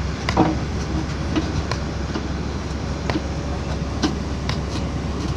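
Backhoe loader's diesel engine running steadily under work, with irregular sharp metallic knocks and clanks from the working machine.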